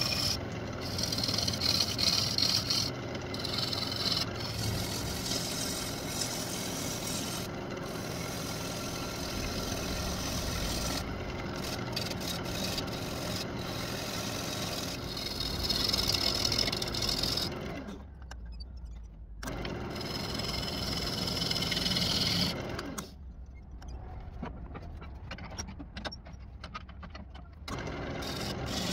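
Wood lathe running with a steady motor hum while a turning tool cuts the outside of a spinning walnut bowl blank, the cuts giving hissing, scraping surges that come and go. The cutting drops out twice in the second half, leaving only the lathe's hum.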